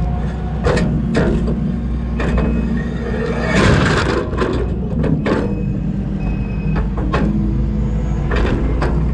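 Diesel engine of a Kubota skid steer running steadily under load, with repeated clanks and knocks of its steel tooth bucket breaking and scraping up concrete. A louder crash comes about three and a half seconds in.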